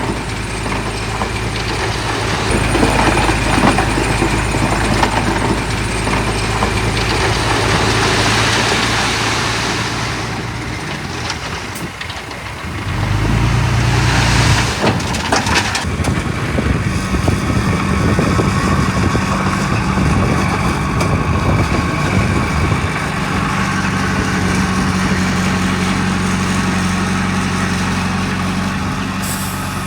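Heavy diesel engines of earthmoving machines running steadily. The sound dips about twelve seconds in, then rises again, with a short hiss soon after.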